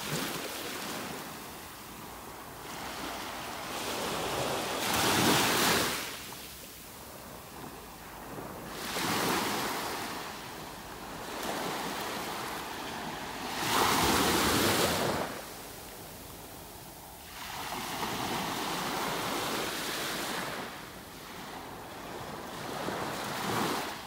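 Small surf waves breaking and washing up a sandy beach, the rush swelling and fading about five times, every four to five seconds, loudest about five and fourteen seconds in.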